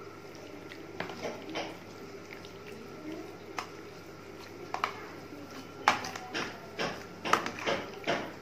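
Hand working marinated chicken pieces in a plastic tub: wet slaps and knocks against the container, a few scattered at first, then coming about twice a second near the end.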